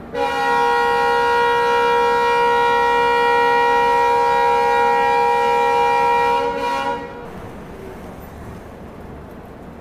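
Railway locomotive horn: one long, loud, steady multi-note blast of about seven seconds that stops abruptly, with a low steady background left after it.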